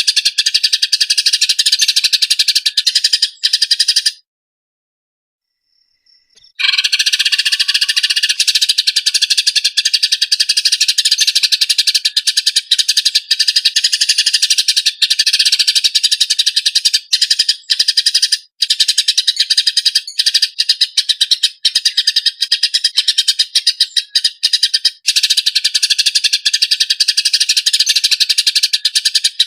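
Eurasian tree sparrows fighting: a dense, rapid run of harsh chirps. It breaks off for about two seconds around four seconds in, then resumes.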